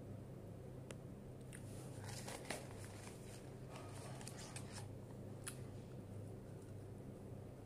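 Faint crinkling and crackling of a paper fast-food wrapper and food being handled, with a few sharp clicks, over a steady low hum.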